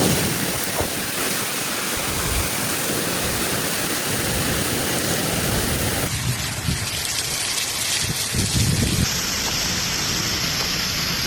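Heavy rain falling: a steady hiss that changes character abruptly about six and again about nine seconds in.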